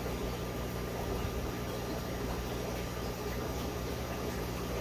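Steady low electrical-sounding hum with an even hiss and a faint thin high tone, unchanging throughout: background room tone with no distinct events.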